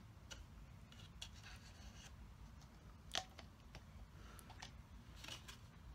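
Near silence: room tone with a few faint light clicks and taps of handling, the clearest about three seconds in.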